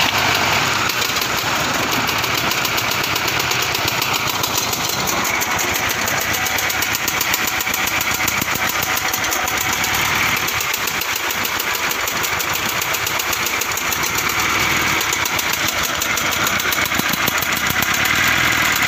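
Toyota Camry 5S-FE 2.2-litre four-cylinder engine running just after starting, with a fast, even mechanical clatter over its running sound. It is an engine the mechanic calls broken.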